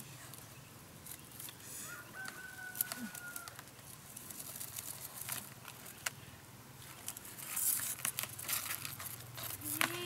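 A rooster crowing once, a held note of about a second and a half a couple of seconds in, over light crackling of palm leaves being handled.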